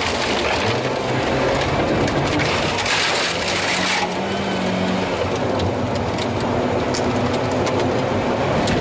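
Volvo 740 rally car heard from inside the cabin, its engine running hard with its pitch rising and falling as it accelerates and shifts. Loose gravel crunches under the tyres and pings against the car's underside, with a louder rush of gravel noise from about two and a half to four seconds in.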